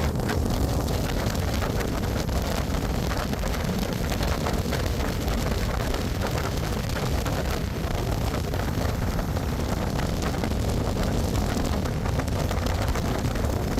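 Steady road and wind noise from a moving vehicle, an even rush with no distinct events.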